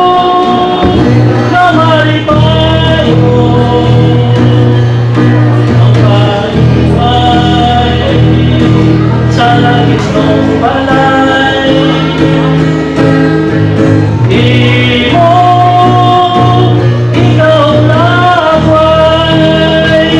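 Men singing a song together to an acoustic guitar, the lead voice singing into a microphone, with long held notes that waver in pitch.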